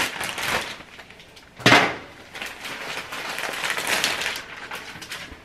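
Rustling and crinkling of a new duvet cover being handled, with one sharp knock a little under two seconds in.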